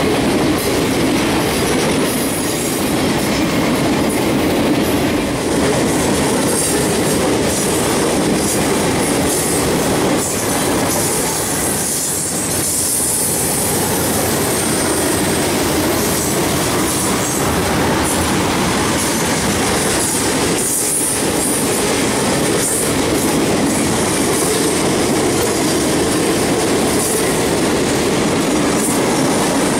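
Freight cars (boxcars and covered hoppers) rolling past at close range: steel wheels clicking over rail joints, with a high wheel squeal that comes and goes.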